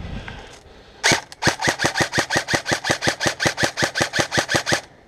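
Airsoft replica firing one continuous full-auto burst of about two dozen evenly spaced shots, about six or seven a second, starting about a second in and stopping abruptly near the end.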